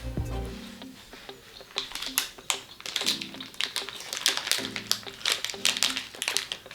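Background music with repeating notes, over irregular sharp clicks and crinkles of a plastic snack wrapper being handled and opened.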